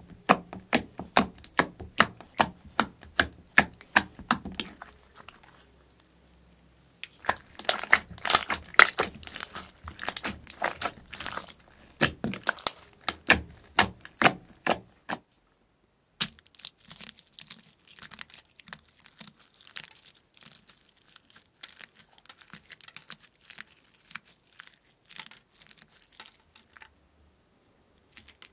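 Slime squeezed and poked by fingers in a glass dish, giving rapid crackling pops and clicks as trapped air bursts. The popping stops briefly twice, and after about sixteen seconds the clicking is softer.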